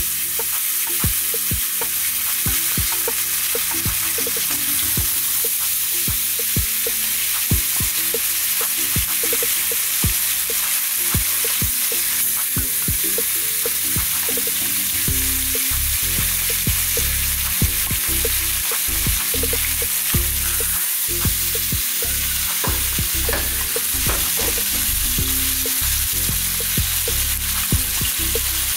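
Whole fish frying in curry-seasoned oil in a nonstick frying pan: a steady sizzling hiss with frequent crackling pops as more fish are laid into the hot oil.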